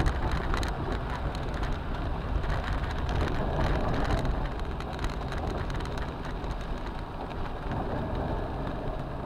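Heavy rain pattering on a car's roof and windshield, with many small drop ticks, over the low rumble of the car driving on a wet, flooded road.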